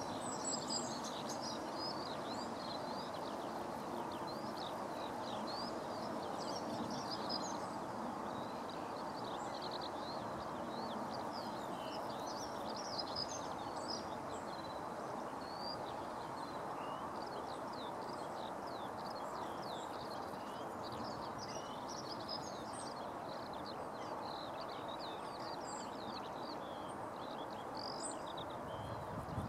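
Many short, high bird chirps come in quick scattered runs over a steady hum of background noise.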